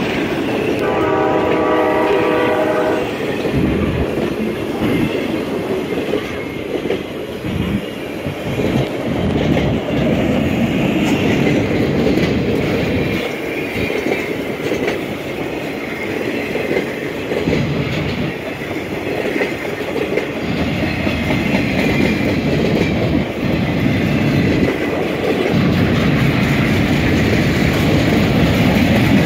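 Freight cars rolling steadily past at close range, with wheel-and-rail rumble and clickety-clack over the rail joints. About a second in, a horn sounds for about two seconds.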